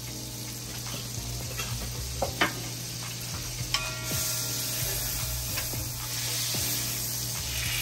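Butter sizzling as it melts in a hot pot, the sizzle growing brighter and a little louder about four seconds in as a wooden spatula pushes the butter around, with a few light scrapes and taps of the spatula.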